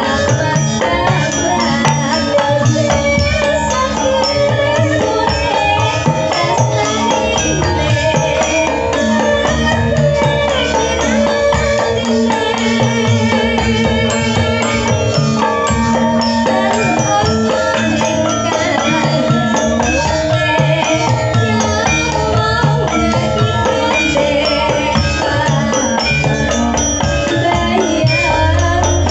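Javanese gamelan playing in the pelog scale, with a sinden (female solo singer) singing over it through a microphone.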